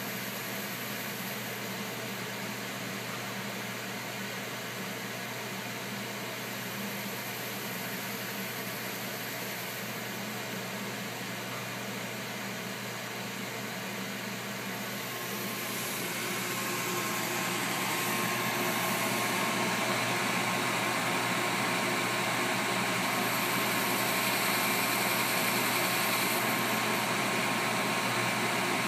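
EMCO 5 PC CNC lathe running while roughing out a part: a steady mechanical hum and whine from the machine, which grows louder and hissier a little past halfway through.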